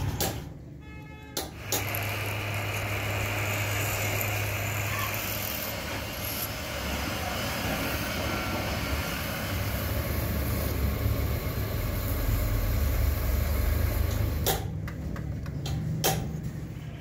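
Pillar drill press running, its motor humming steadily while a small bit drills into a small metal part. Two sharp clicks come near the end.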